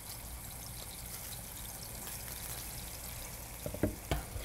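Soy sauce, mirin and ginger syrup sauce boiling hard in a frying pan: a steady bubbling hiss. Near the end, a metal measuring spoon clinks a few times as it stirs the sauce.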